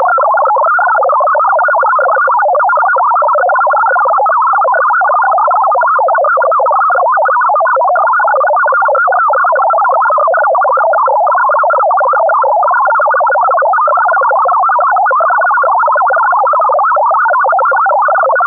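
MFSK64 digital data transmission: a dense, continuous warble of rapidly hopping pure tones in a band around 1000 Hz.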